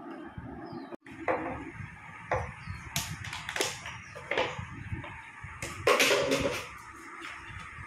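Irregular knocks and taps of things being handled and set down on a table, with a louder cluster of knocks about six seconds in, over a low rumble of handling noise.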